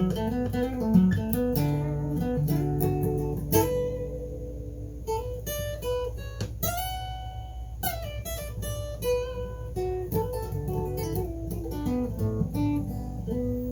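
Acoustic guitar playing a blues lead break of single picked notes, with one note bent upward about six and a half seconds in.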